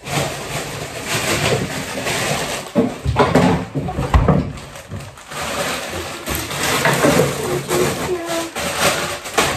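Groceries being handled and put away in a fridge: plastic bags and packaging rustling, with a couple of knocks about three and four seconds in.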